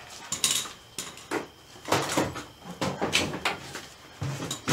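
Knocking, clunking and rattling of a heavy interior part being worked loose and pulled out of a stripped car body, in a string of uneven bangs and scrapes.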